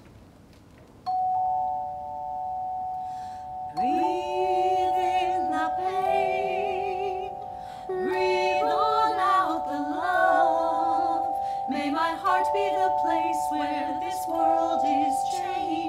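Handchimes struck one after another, each ringing on in a long steady tone so that they build up sustained chords, while women sing a slow melody with vibrato over them from about four seconds in.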